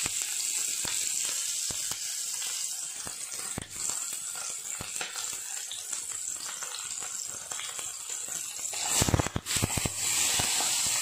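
Sliced green chillies and popped mustard seeds frying in hot sesame oil in a pan: a steady sizzle with scattered small crackles. About nine seconds in comes a brief louder burst of crackling and clatter.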